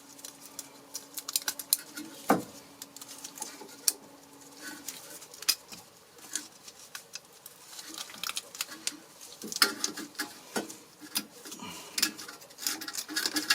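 Irregular clicks, taps and light scrapes of metal brake pad hardware clips being handled and pressed into place on a rear brake caliper bracket. A faint steady hum runs through the first few seconds.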